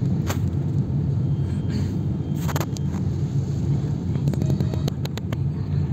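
Car engine and road noise heard from inside the cabin while driving, a steady low rumble, with a brief burst of noise about two and a half seconds in and a quick run of light clicks about a second before the end.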